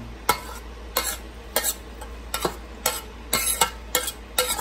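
Metal spoon scraping and knocking against a stainless steel skillet as sautéed ground-meat filling is scraped out into a mixing bowl: a string of irregular clinks and scrapes.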